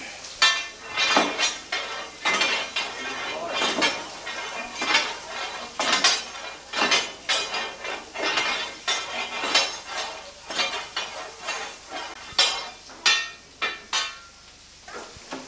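Long steel fire rake scraping and clanking against the grate and firedoor ring of a paddle steamer's boiler as the fire is worked, in an uneven run of ringing metallic strokes, about one to two a second, dying away near the end.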